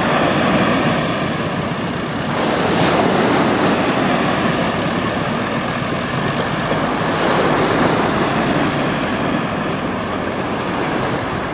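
Waves washing up the beach mixed with a farm tractor's diesel engine running as it tows a boat out of the surf on a taut rope, with wind buffeting the microphone.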